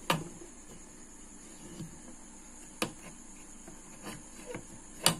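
Sharp clicks and taps of an amplifier driver board being handled and turned over: three louder clicks, at the start, near the middle and near the end, with a few fainter ticks between, over a steady high hiss.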